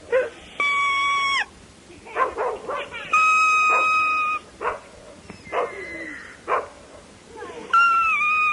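A blade-of-grass whistle blown in three steady, shrill notes, each about a second long. A dog's short barks and yips fall in between them.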